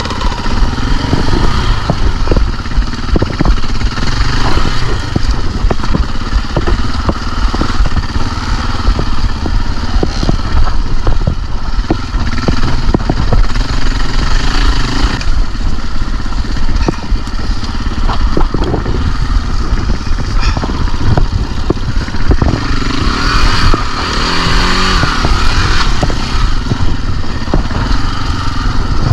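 KTM dirt bike engine running steadily as the bike is ridden along a trail, with frequent short knocks and clatter throughout.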